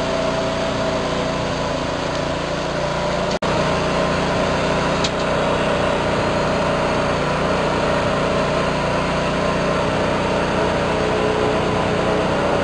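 Steady mechanical hum of a small liquid bottle-filling machine running, with a faint tick now and then. The sound drops out for an instant about three and a half seconds in.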